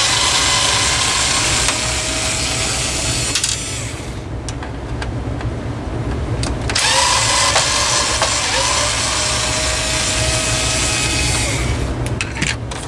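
Electric power screwdriver backing out two screws from a plastic fan housing: two runs of a steady motor whine, each about four to five seconds, with a pause of about three seconds between. A few light clicks follow near the end.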